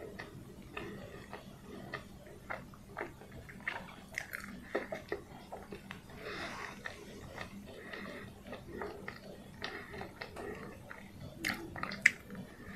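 Close-miked chewing of a soft steamed peanut bun (pau kacang kukus): irregular wet mouth clicks and smacks. Near the end comes a bite into the bun, the loudest sound.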